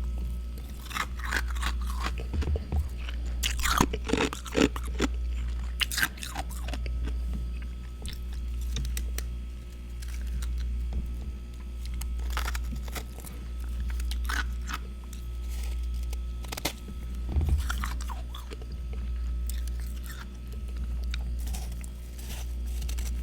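Freezer frost being bitten and chewed close to the microphone, with loud crunches crowded into the first several seconds and then sparser crunching. A steady low hum runs underneath, swelling and fading about every two seconds.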